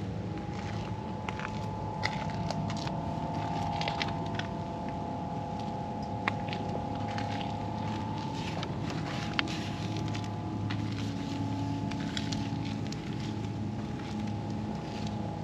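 Jaguar F-Type R75's supercharged 5.0-litre V8 idling steadily, with a constant higher tone over the idle and scattered light clicks and taps.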